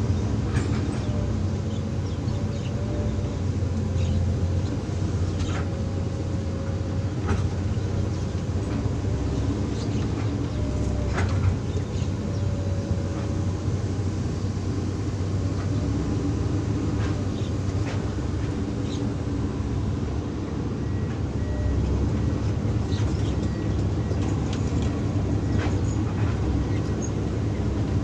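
Hydraulic excavator's diesel engine running steadily under work, with a faint wavering whine through the first half and occasional sharp clanks.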